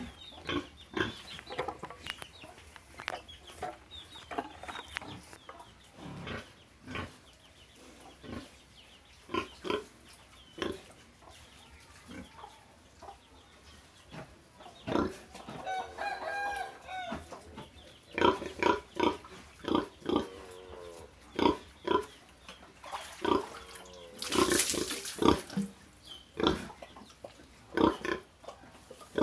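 Domestic pig grunting in many short grunts, with a longer drawn-out pitched call about halfway through and a loud harsh burst of noise about three-quarters of the way through.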